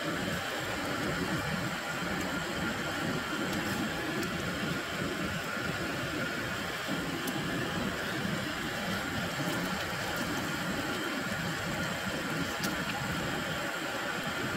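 Old brass pressure-stove burner running with a steady roar and hiss, with duck slices sizzling in the frying pan above it.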